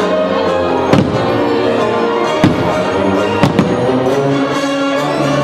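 Fireworks show music playing steadily, broken by four sharp bangs of firework shells bursting: about one second in, at two and a half seconds, and two close together near three and a half seconds.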